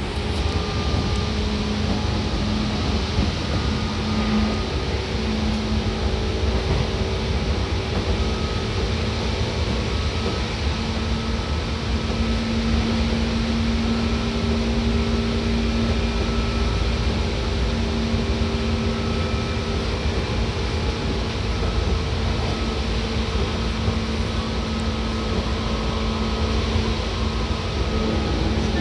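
Seibu 2000 series electric train running at steady speed, heard from inside the car: a loud, even rumble of wheels and running gear with a few level whining tones that fade in and out.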